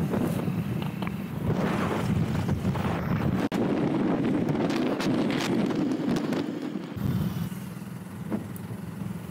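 Motorcycle engine running steadily while riding, with wind buffeting the microphone. The engine drone drops back for a few seconds in the middle while the wind rush is strongest, then picks up again.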